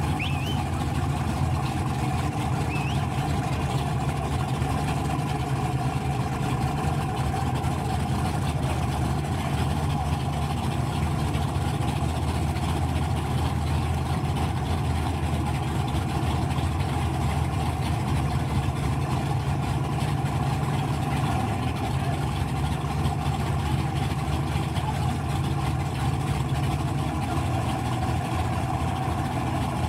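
Drag-racing car engines idling steadily, an even low rumble with no revving.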